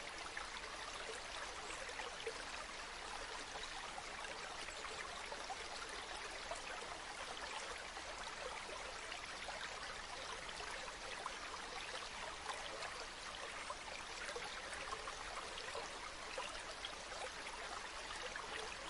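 Mountain river flowing over stones: a steady babbling and bubbling rush of water, with fine splashing and trickling detail throughout.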